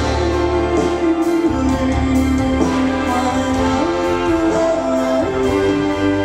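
Symphony orchestra playing a slow ballad accompaniment, with a woman's voice singing the melody over it.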